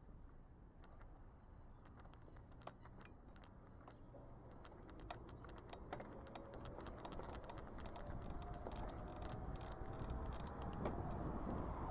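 Riding on an e-bike: a fast, irregular clicking rattle over road and wind noise that grows steadily louder.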